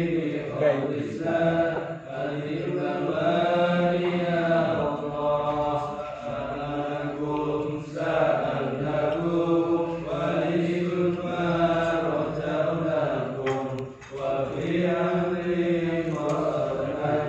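Men chanting Islamic prayers in Arabic, long drawn-out melodic phrases with brief pauses for breath between them.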